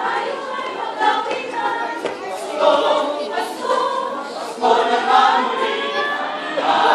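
Mixed choir of men's and women's voices singing held notes in changing phrases, growing louder about two-thirds of the way through.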